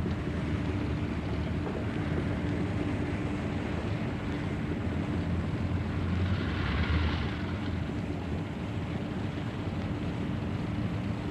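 Steady mechanical rumble with a constant low hum, swelling briefly about seven seconds in.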